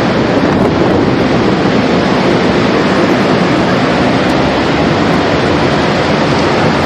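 A loud, steady rushing noise with no distinct events, like surf or strong wind.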